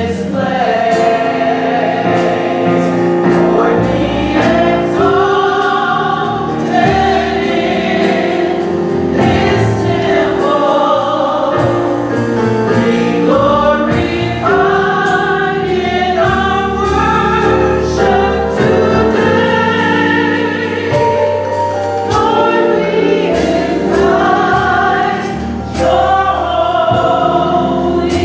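Gospel choir singing with band accompaniment and a steady drum beat.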